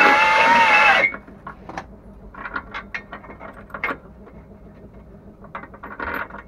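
A power tool's high motor whine, wavering slightly in pitch, stops abruptly about a second in. Then hand-tool work on bolts: short runs of ratchet clicking and scattered metallic clinks and ticks.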